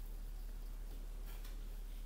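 Kitchen knife cutting raw chicken wings on a plastic cutting board, with a faint click of the blade on the board about one and a half seconds in, over a low steady hum.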